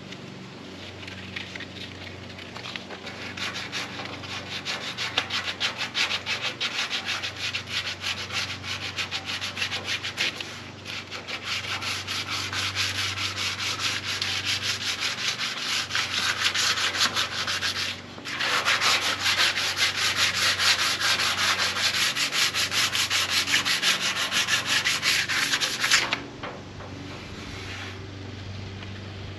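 Hand sanding with a sanding block, rapid back-and-forth strokes scuffing the paint on a car body panel to prepare it for primer. The strokes start about a second in, pause briefly twice, and stop a few seconds before the end.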